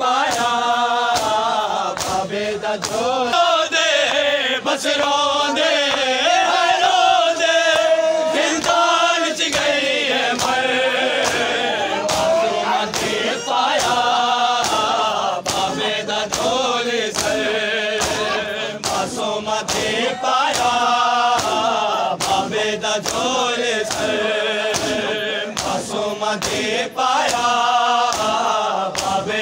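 A crowd of men chanting a noha in unison behind a lead reciter, with repeated sharp slaps of hands beating on bare chests in time with the chant (matam).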